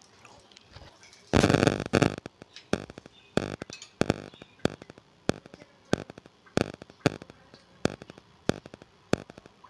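Oil going onto a paratha on a hot iron tawa: a loud burst of sizzling about a second in, then a steel spoon spreading the oil in regular strokes, about three every two seconds, each a short sizzling scrape.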